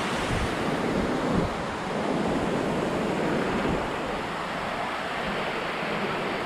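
Sea surf washing on the shore, a steady rush of water, with wind buffeting the microphone.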